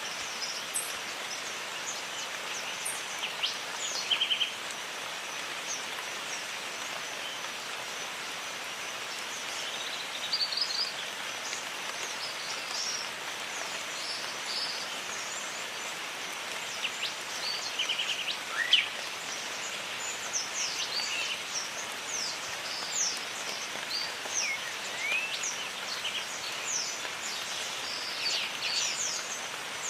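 Jungle ambience: steady rain hiss under many birds calling with short chirps and quick rising and falling whistles, over a thin, steady high-pitched tone.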